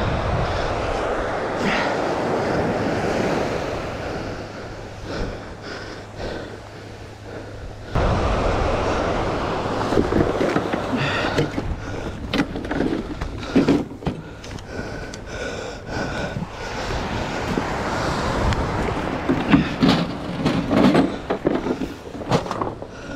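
Wind buffeting the microphone over surf on a beach, with knocks and rustles of fishing gear being handled, including a white plastic box.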